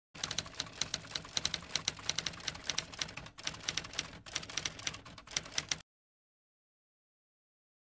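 Typewriter keys striking in a rapid, uneven run of clacks, several a second, which stops abruptly about three quarters of the way through.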